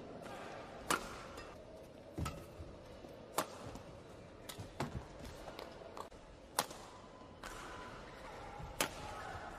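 Badminton rackets striking a shuttlecock in a rally: sharp smacks about one to two seconds apart, ringing briefly in the hall, over a faint steady arena background.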